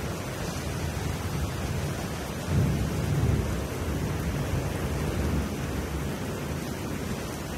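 Steady rain with a low roll of thunder, a storm recording used as a track's intro; the thunder rumble swells about two and a half seconds in and then settles back under the rain.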